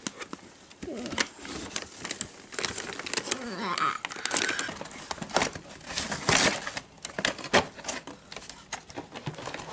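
Cardboard toy box with a clear plastic window being handled: irregular taps, clicks and light scrapes as fingers press on the plastic and the box is turned over.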